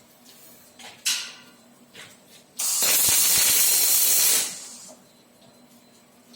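Robotic arc welding: a short sharp burst about a second in, then about two seconds of loud, steady hissing with a crackle from the welding arc, which stops abruptly.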